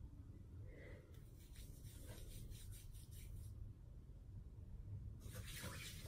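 Hands rubbing together, working foaming hand-sanitizer mousse into the skin: a faint, soft scratchy rubbing that grows louder near the end.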